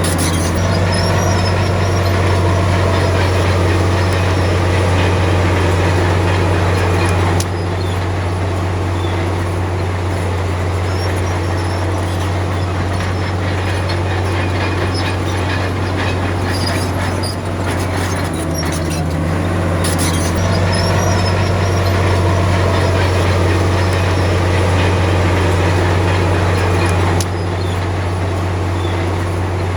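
Komatsu D53P crawler bulldozer working: its diesel engine runs steadily under load while its steel tracks clank and squeal. The sound drops a step about seven seconds in and again near the end.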